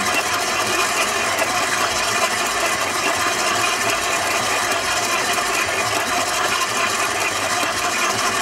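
Electric stand mixer running steadily, its flat beater churning crumbly streusel dough in a steel bowl.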